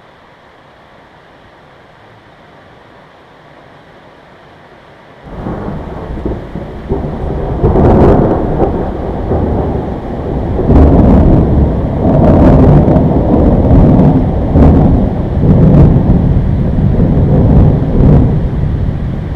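Thunder after a lightning flash: a faint steady hiss for about five seconds, then a loud rolling rumble of thunder sets in suddenly and keeps going, swelling again and again with sharper cracks.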